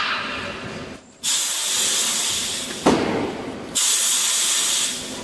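Pneumatic plastic egg sealing machine releasing compressed air. A sudden high hiss starts about a second in and fades, a sharp click comes near the three-second mark, then a second hiss cuts in and fades near the end.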